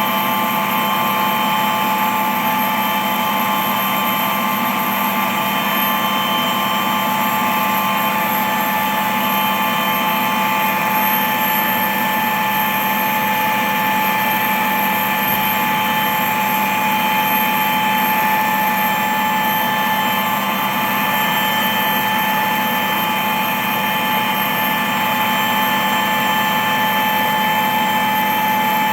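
Steady machine hum from an engine or motors, with several fixed whining tones over a noisy rush that holds level and pitch throughout.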